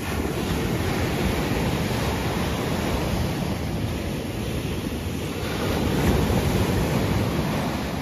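Small ocean waves breaking and their foam washing up a sandy beach: a steady rushing surf that swells louder about six seconds in.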